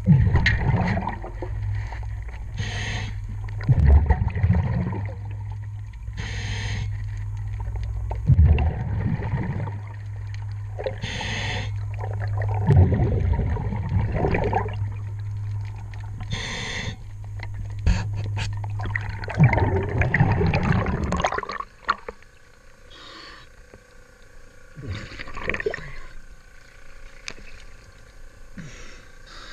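Underwater, a diver's regulator breathing: bubbling exhalation bursts about every four to five seconds over a steady low hum. About three quarters of the way through, the hum and bubbles cut off suddenly as the camera breaks the surface, leaving quieter splashing.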